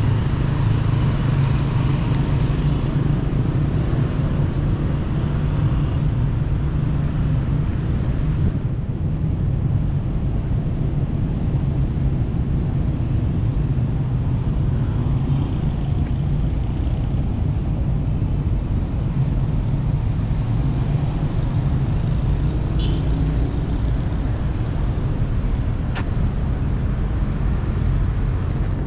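Outdoor city street ambience: a steady low rumble of road traffic. Near the end there is a brief high-pitched squeal.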